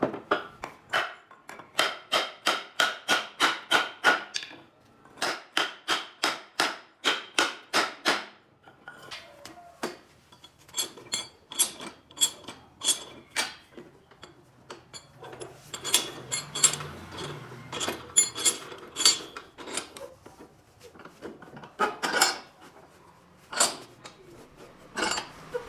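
Hammer striking, likely nails into wood: two runs of steady blows, about three a second, each with a ringing note. These are followed by slower, irregular knocks.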